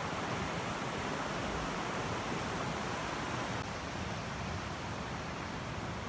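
Rushing water of a fast-flowing, silty mountain river: a steady, even rush with no distinct splashes.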